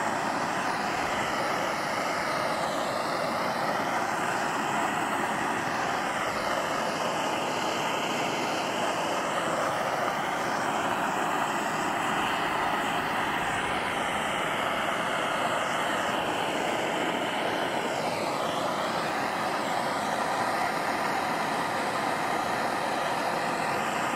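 Push-button propane torch burning with a steady, even rush of flame, heating a titanium muzzle brake so that the metal colours.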